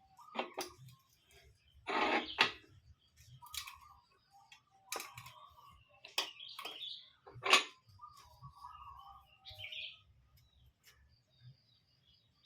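Birds chirping in short, scattered calls, with a few louder sharp sounds about two, five and seven and a half seconds in.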